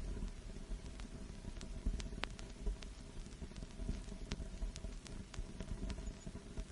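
Vinyl record surface noise: a steady low rumble and hiss with sharp clicks and pops scattered at irregular moments.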